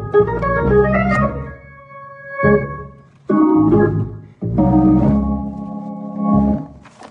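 Organ playing slow, held chords, about four of them, with short breaks between.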